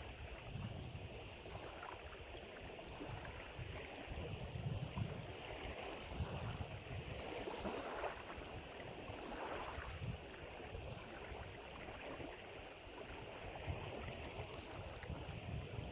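Wind buffeting the microphone in irregular gusts, over the steady wash of small waves on the lake, which swells a little about halfway through.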